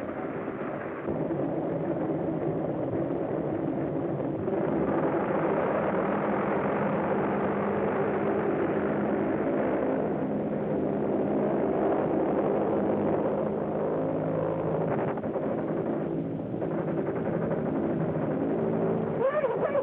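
Light aircraft's engine running steadily, heard through an early-1930s film soundtrack, with a short wavering whistle-like tone near the end.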